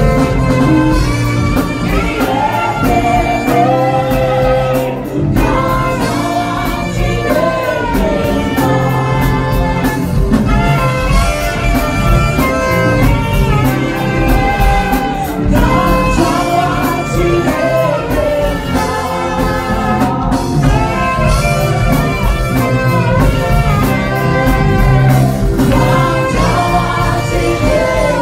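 Two saxophones playing a gospel-jazz worship melody together, with bending, sliding notes, over a backing of drums and bass.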